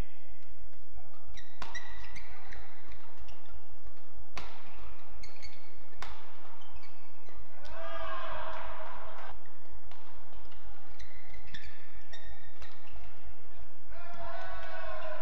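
Badminton play on an indoor court: sharp smacks of rackets hitting the shuttlecock and short squeaks of players' shoes on the court mat. A drawn-out shout comes twice, midway and near the end.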